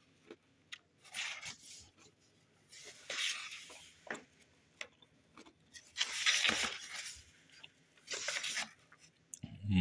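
Pages of a hardcover book being turned by hand: four short papery swishes and rustles, the loudest about six seconds in, with faint taps between them.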